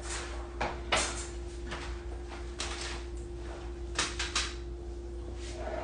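Scattered knocks and clicks of things being handled and set down on a kitchen counter, a few single taps and then a quick cluster of three about four seconds in, over a steady low hum.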